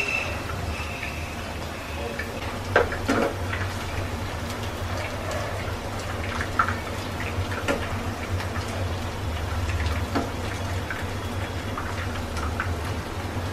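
Chicken pakoras deep-frying gently in oil over a low flame: a steady sizzle with crackling pops and a low hum underneath. A metal spoon knocks against the pan several times as the pakoras are stirred, loudest about three seconds in.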